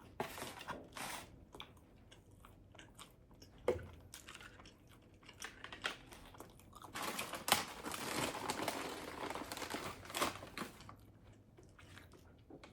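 Close-up chewing and crunching of a bite of tuna melt sandwich, in short bursts with a longer, louder stretch of crunching a little past the middle.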